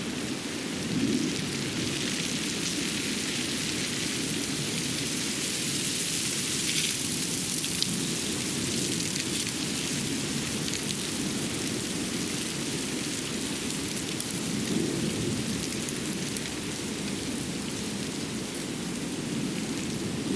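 Winter forest ambience after fresh snowfall: a steady, even rushing noise with faint scattered light ticks, swelling slightly about a second in and again near the three-quarter mark.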